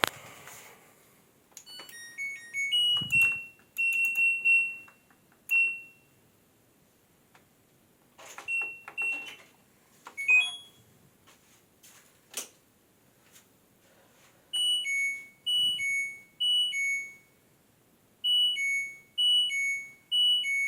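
LG F80C3LD washing machine's control panel beeping, in a fault the owner calls a glitch. First there are scattered short beeps with clicks. From about two-thirds of the way in comes a repeating falling two-note signal: three high-low pairs, a short pause, then three more.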